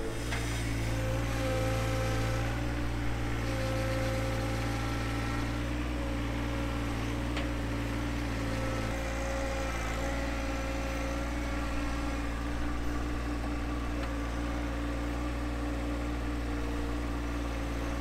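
John Deere 1025R compact tractor's three-cylinder diesel engine running steadily at low revs.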